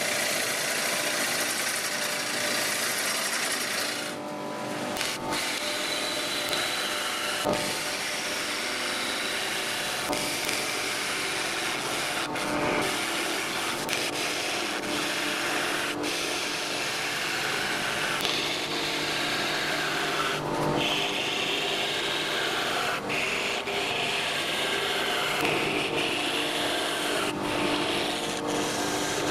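Gouge cutting the face of a spinning spalted wood blank on a wood lathe: a continuous scraping rush of wood being shaved, with the lathe motor humming steadily underneath.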